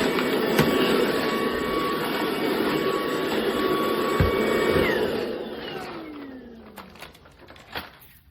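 Tineco Pure ONE S11 cordless stick vacuum running steadily with a high motor whine and a few knocks. About five seconds in it is switched off, and the motor winds down with falling pitch until only a few clicks remain.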